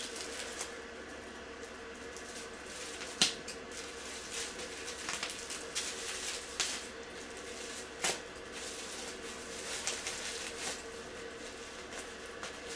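Packaging being handled: scattered rustles and small clicks, the sharpest about three seconds in and another about eight seconds in, over a faint steady hum.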